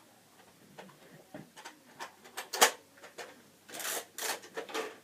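Plastic clicks and rattles of a Nerf blaster being reloaded by hand, with one sharp click about two and a half seconds in and a few short scraping rustles after it.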